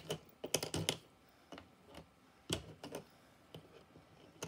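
Cardboard jigsaw puzzle pieces being picked up, slid and set down on a hard tabletop by hands with long nails: irregular short clicks and taps, a quick cluster about half a second in and a single louder tap about two and a half seconds in.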